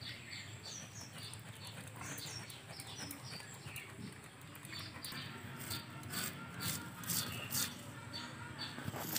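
A silver carp being scraped and cut against an upright boti blade in short strokes, its scales coming away. Small birds chirp over and over in the background.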